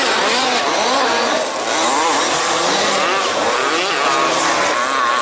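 Several 1/5th-scale off-road RC cars' small two-stroke petrol engines racing together, their pitches rising and falling over one another as they rev and back off around the track.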